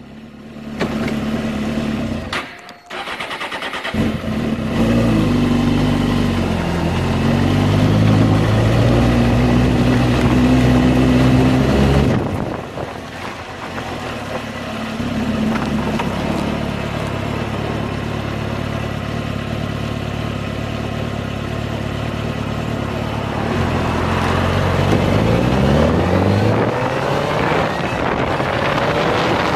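Suzuki GSX-R600 motorcycle's inline-four engine running, cutting out briefly about three seconds in, then run with its pitch rising and falling while the bike is stationary. Near the end the engine pitch rises in several sweeps as the bike pulls away and accelerates, with wind noise building.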